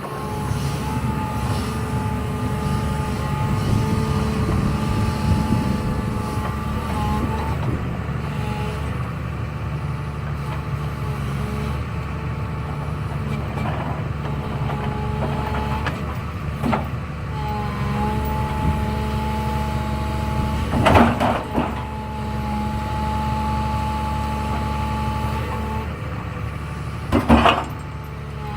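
Excavator's diesel engine running steadily under load, with steady whining tones that come and go as it works. Two sharp knocks, about three quarters of the way through and near the end, as logs land on the truck.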